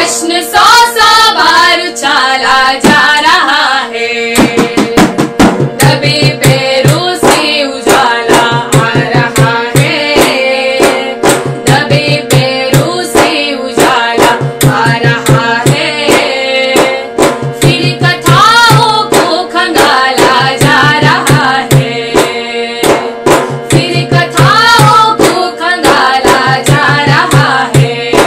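Women singing a protest song in Hindi, accompanied by a large hand-struck drum beating a fast, steady rhythm.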